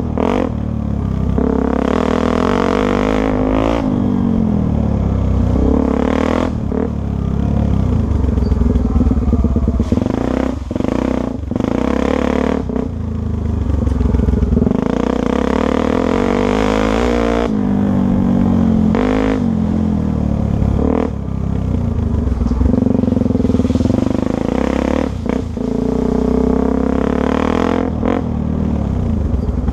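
Dirt bike engine running hard, revving up and down over and over, with short drops in engine note where the throttle is rolled off.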